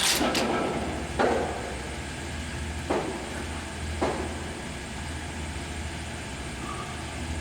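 1961 LeBlond 4025NK heavy-duty gap lathe running with its spindle at 60 RPM: a steady low hum with a few short, sharp knocks, the loudest about a second in.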